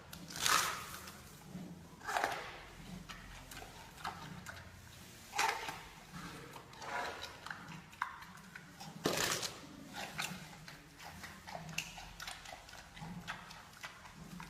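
Giant panda eating bamboo: irregular crunching and snapping of the stalks as it chews, with a few louder cracks among smaller crunches.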